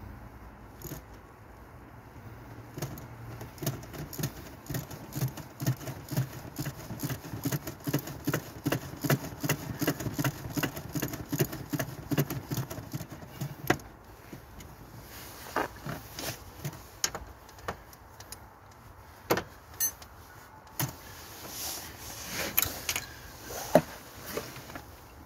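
Hand tools working on a car engine: about ten seconds of quick, closely spaced metallic clicking, then scattered single knocks and clinks.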